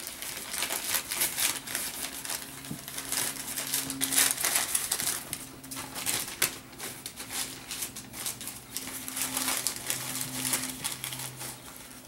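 A sheet of paper crinkling and rustling in irregular bursts as a puppy chews, shakes and pounces on it.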